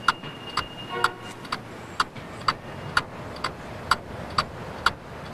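Clockwork timer of a mechanical parking meter ticking steadily, about two ticks a second, with a thin high tone during the first second.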